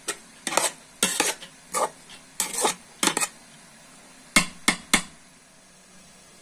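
A metal spoon scraping and clinking against a metal pot as cooked rice is mixed: a run of quick strokes that ends with three sharp taps about five seconds in.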